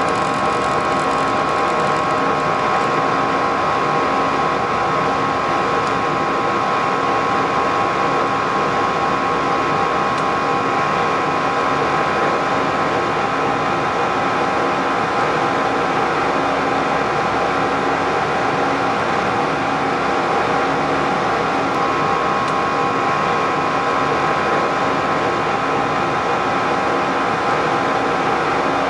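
Airbus A320-214 flight deck in the climb: a steady rush of airflow and engine noise with a constant high whine on top, unchanging throughout.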